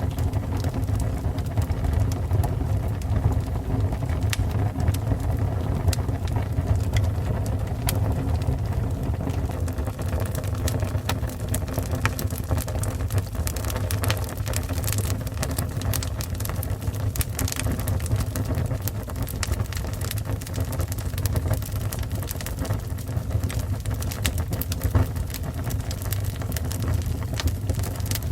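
Fire burning: a steady low rumble of flames with frequent sharp crackles and pops.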